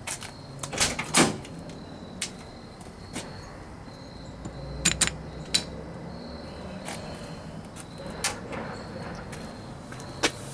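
Scattered sharp clicks and knocks, about ten of them at uneven gaps, the strongest about a second in and a close pair about five seconds in, over a faint low hum. They come while the Posi-Lok actuator's cable is pulled from inside the Jeep and the shift fork slides back.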